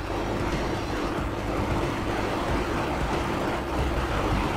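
Thick, milk-based egg korma gravy bubbling and sizzling steadily in a pan at a boil, with a steady low hum underneath.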